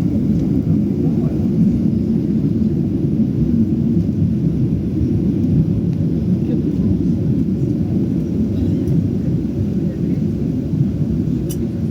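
Steady low rumble of cabin noise inside a Boeing 737-800 during landing: engine and airflow noise heard through the fuselage.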